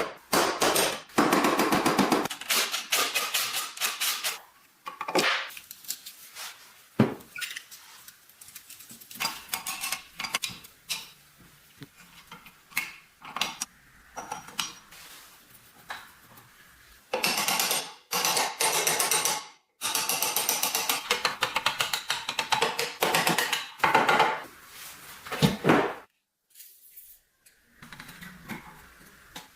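Metal parts of an antique sewing machine being worked with tools: bursts of rapid clicking and scraping, separated by short pauses.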